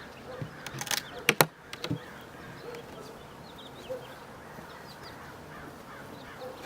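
A few sharp knocks and clicks about a second in, then birds calling and chirping in the background.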